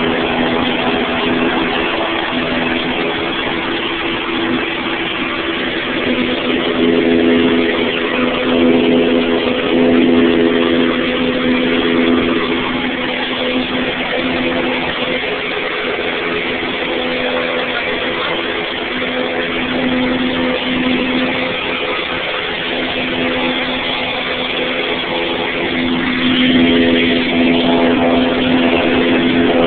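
Propeller aircraft's engine and propeller heard from inside the cabin: a loud, steady drone with several held tones that fade and swell over a constant rush of noise.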